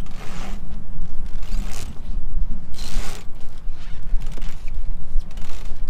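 Sailboat winch cranked with a winch handle, hauling in a line under load, its pawls ratcheting in repeated spells of clicking over a steady low rumble.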